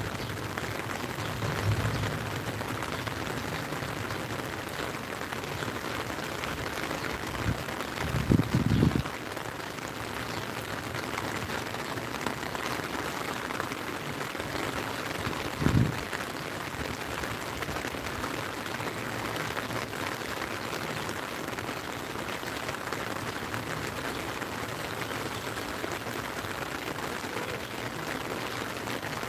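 Steady rain falling on the lake and on an umbrella overhead. A few dull low thumps come through, the loudest about eight seconds in and another just past the middle.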